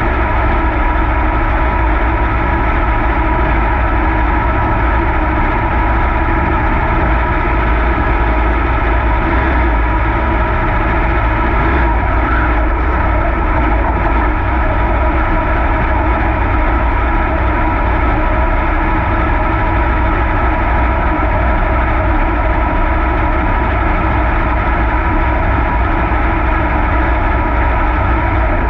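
V8 engine of a dirt Super Late Model race car running loud and steady at an unchanging pitch, heard from on board the car.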